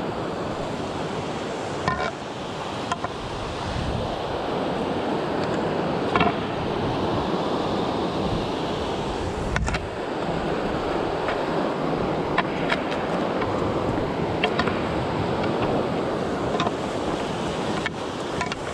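Steady rushing of a mountain river's white-water rapids, with irregular clicks and knocks of footsteps on loose rocks.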